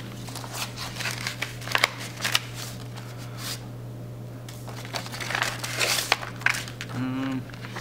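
Paper and cardboard packaging being handled and rustled: irregular crinkling and crackling as the contents are taken out of a cardboard mailer, easing off for a moment about halfway.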